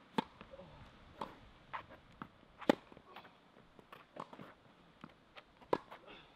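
Tennis balls being hit on a court: a string of sharp pops of ball on racket strings and bounces, with fainter taps between. The loudest strikes come about two and a half seconds in and again near six seconds.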